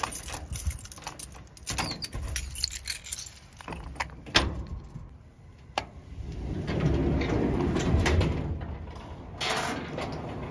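Keys jangling and clicking as a key is worked into a Hörmann garage door handle lock and the handle is turned, with a sharp click about four seconds in. Then the panelled garage door rumbles open for a couple of seconds.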